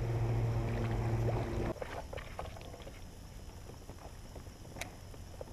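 A steady low motor hum that cuts off suddenly a little under two seconds in, followed by quiet water sounds and small knocks and clicks from a kayak and its gear, with one sharp click near the end.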